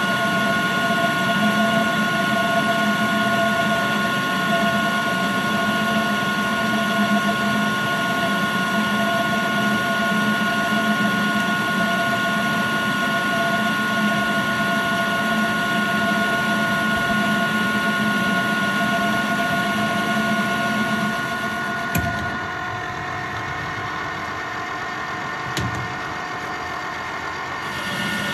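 Colchester lathe running under power with a steady whine of several tones while a carbide insert turns a 4140 steel test bar. About 22 seconds in there is a click and the sound drops a little, with another click near 26 seconds.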